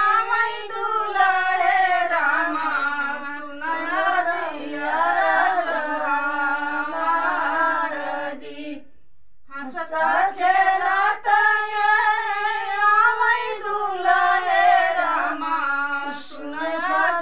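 Women singing a North Indian wedding folk song (vivah geet) unaccompanied, in long drawn-out sung lines, with a brief break about nine seconds in.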